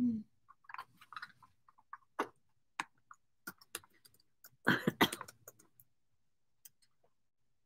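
Items being handled: scattered light clicks and taps, with a louder clatter about five seconds in.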